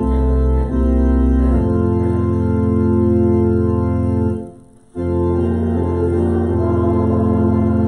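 Church organ playing slow, held chords over low bass notes, breaking off for a moment about halfway before going on.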